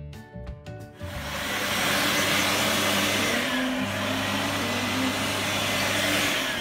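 Background music for about a second, then a wall-mounted electric hand dryer blowing: a loud, steady rush of air over a low motor hum, which cuts off near the end.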